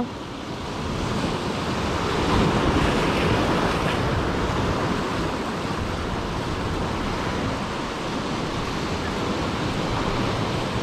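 Sea surf washing steadily, with wind buffeting the microphone; the noise swells a little about two seconds in.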